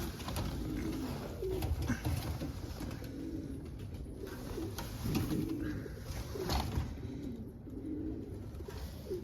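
Young homing pigeon cocks cooing over and over in low, rolling phrases, with a few faint clicks in between.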